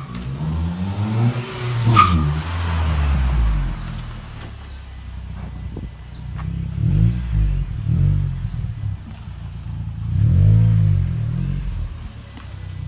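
Mitsubishi Lancer's engine revved several times, its pitch rising and falling with each rev, with a sharp crack about two seconds in.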